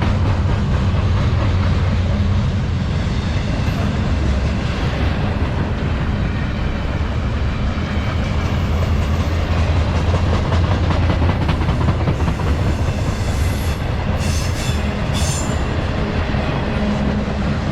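Freight train cars rolling past at close range: a steady rumble with rapid clicking of wheels over the rails, and a few brief high wheel squeals near the end.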